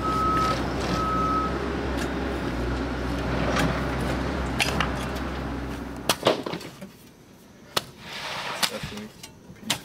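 A heavy machine's engine running, with its reversing alarm beeping twice near the start; the engine sound stops about six seconds in. Then several sharp knocks and scrapes of shovels digging into the clay soil.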